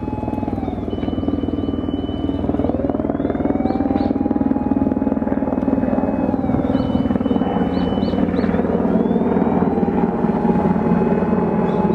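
Electronic siren of a Nissan Caravan fire command car in its slow wail, rising to a held high tone and sliding back down about every six seconds, over a steady low rumble.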